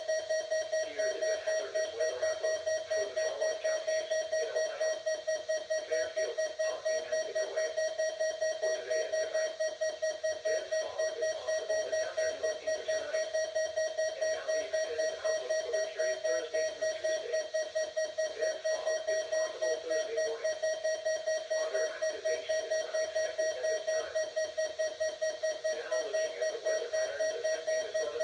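Midland WR-100 weather alert radio sounding its alarm: a single buzzy tone beeping rapidly and evenly, several beeps a second, without a break.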